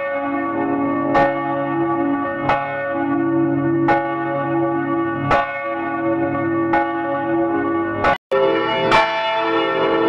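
A single swinging church bell struck by its clapper about once every one and a half seconds, each stroke ringing on into the next. Near the end the sound drops out for an instant and another bell recording, with a different set of tones, takes over.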